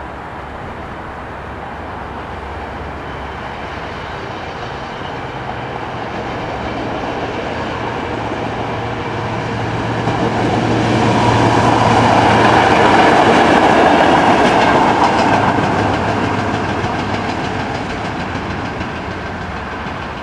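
A diesel locomotive running light passes by. Its steady engine drone and wheel noise build to their loudest about halfway through, then fade as it moves away.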